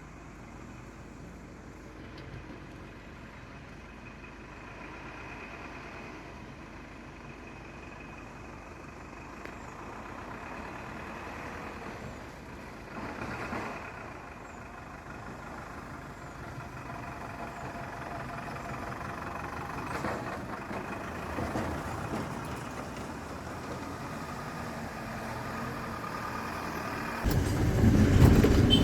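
A motor vehicle engine running amid road noise. Near the end it gets much louder and rises in pitch, as if revving up.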